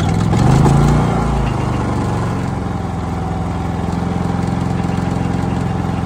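Cummins Onan P4500i inverter generator's engine just caught on an electric-start cold start in freezing weather. It flares up loudly in the first second or so, the revs falling away, then settles into a steady, smooth run.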